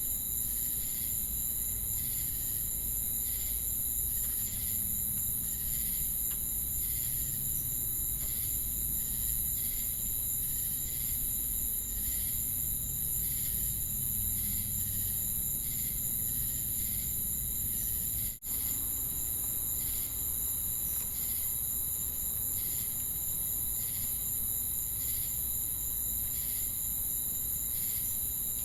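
Chorus of crickets and cicadas: a continuous high-pitched buzzing trill with regular pulsed chirps a little more than once a second. There is a momentary break in the sound about 18 seconds in.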